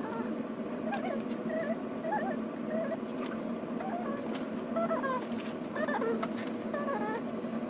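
Fast-forwarded time-lapse audio of hands working on a pinball playfield: rapid, high, chirpy squeaks over a steady hum, with scattered light clicks.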